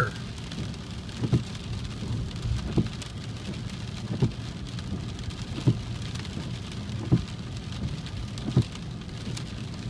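Inside a car's cabin in heavy rain: the windshield wipers thump six times, evenly about every second and a half. Underneath is a steady low hum of the car running on the wet road, with rain on the windshield.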